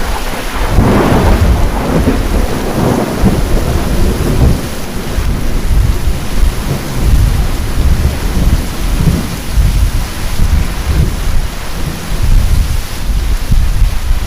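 Heavy thunderstorm: a thunderclap breaks about a second in and rumbles on low and long under steady heavy rain.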